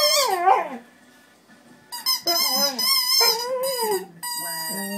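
A husky's wavering, voice-like 'talking' calls mixed with the squeaks of a rubber duck squeaky toy he is chewing. A brief pause about a second in, then more talking, and a long squeak near the end.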